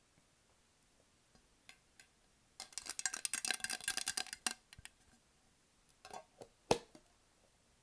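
Rapid tapping on a candle jar, a quick run of taps lasting about two seconds, then three separate taps, the last the loudest.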